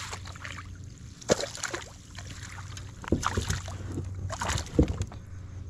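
Water splashing and sloshing with a few short knocks against a kayak as a hooked spotted seatrout is brought in and netted.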